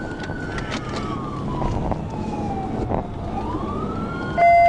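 Police car siren in slow wail mode, rising, falling and rising again over steady road noise. A short, loud steady beep cuts in near the end.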